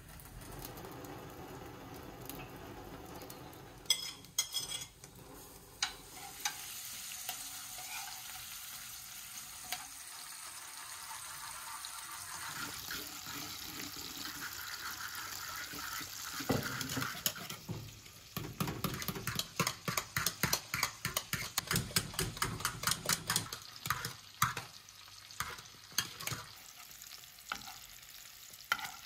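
A spoon stirring cornmeal as it is poured into a cooking pot, with a steady bubbling hiss. About halfway through, diced pork fat sizzles as it fries in a pan, with quick scraping spoon strokes of about three or four a second.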